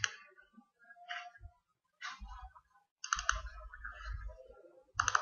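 Scattered clicks and taps from a computer mouse and keyboard, in short clusters with pauses between and a quicker run of clicks about three seconds in.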